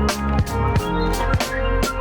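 Background music with a steady drum beat and sustained instrumental chords.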